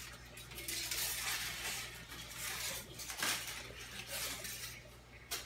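Crumpled aluminium foil crinkling and rustling in a child's hands, in irregular crackly bursts.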